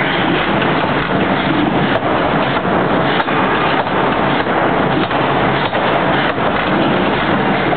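Heavy forging machinery running: a loud, steady mechanical din with faint, irregular knocks and no distinct hammer blows.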